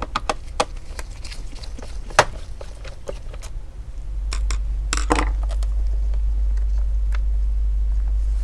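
Small Phillips screwdriver undoing a hidden screw in a laptop's aluminium bottom case, with scattered light clicks and taps of metal on metal and one sharper click about two seconds in. A steady low hum comes in about four seconds in.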